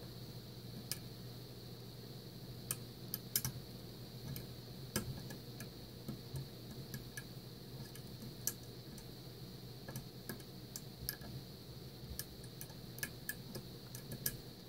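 Lock pick and tension tool working the pins of a Mul-T-Lock Interactive cylinder: light, sharp metal clicks at irregular intervals as the pins are lifted and set, over a steady low hum.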